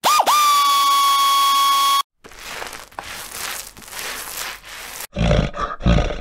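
A steady high tone for about two seconds, dipping sharply in pitch right at its start. Near the end come two loud, deep, rough growls, a bear roar.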